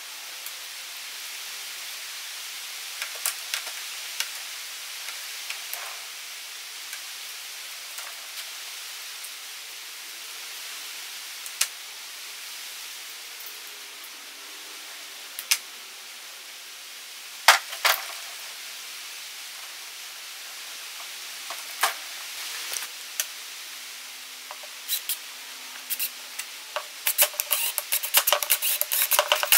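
Light clicks and taps scattered over a steady hiss, with a quick flurry of clicks near the end.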